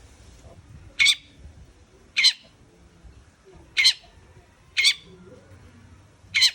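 Long-tailed shrike (cendet) giving five short, harsh calls, one every second or so with uneven gaps.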